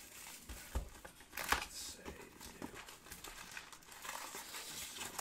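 Plastic wrapping crinkling and tearing as a sealed trading-card box is unwrapped and opened, in irregular crackles with a louder burst about a second and a half in.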